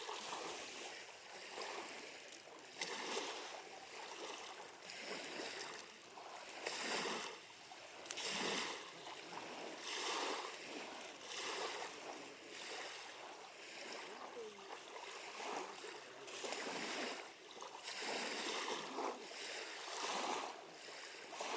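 Small waves lapping at a lakeshore, coming in irregular washes every second or two.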